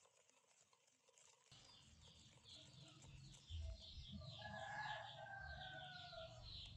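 Near silence, then faint chickens clucking from about two seconds in, with a run of quick high chirps.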